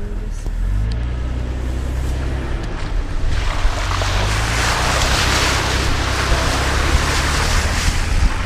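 A Jeep Cherokee's 4.0 straight-six engine runs steadily at low speed while its tyres plough through a muddy puddle. From about three seconds in, loud splashing and rushing water is the main sound.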